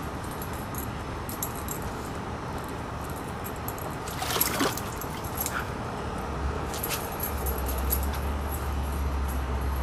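Airedale terrier moving about at the edge of a pond, with a brief clattering burst about four and a half seconds in and a steady low rumble joining from about seven seconds.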